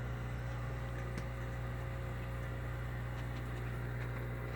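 Steady low electrical hum of a large aquarium's running equipment, its Fluval FX6 canister filters and air pump, with a few faint ticks.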